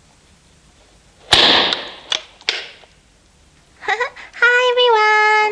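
A sharp bang with a hissing tail about a second in, then two smaller pops, like a firework or party popper going off. Near the end a high voice calls out one long, drawn-out word.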